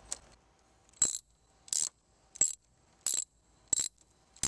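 Socket ratchet clicking as it tightens the nut on a car battery's terminal clamp: six short metallic ratcheting clicks, about one every two-thirds of a second, starting about a second in.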